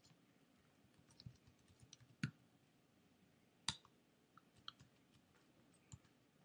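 Faint, irregular key clicks of typing on a computer keyboard, with two louder keystrokes a little before and after the middle.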